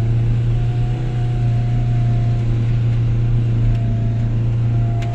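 Two-wheel-drive Toyota HiLux ute running steadily along a rough track, heard from inside the cab as a loud, even engine drone with a thin steady whine above it.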